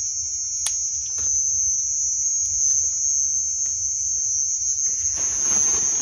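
Crickets chirping in a constant high-pitched trill. About five seconds in, a rustling of green corn husks being stripped from the cob joins it.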